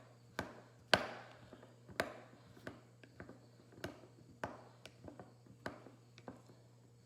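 A knife stirring garlic cloves in honey in a jar, the blade knocking against the jar in about ten sharp taps, irregularly spaced and getting quieter toward the end.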